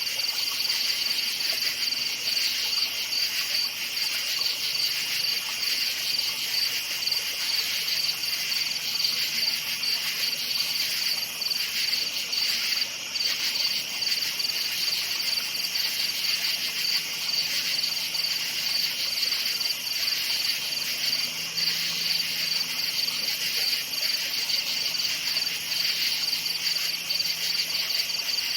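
Crickets chirping in a dense, continuous chorus of fast high-pitched trills.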